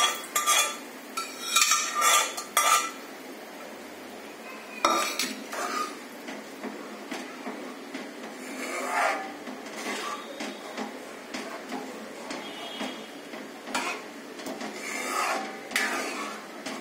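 A spoon scraping and clinking against a metal pan as mashed vegetables are scraped out, loudest in the first three seconds. Then a steel ladle stirs the thick mash-and-masala mixture in a kadhai, scraping and knocking against the pan now and then.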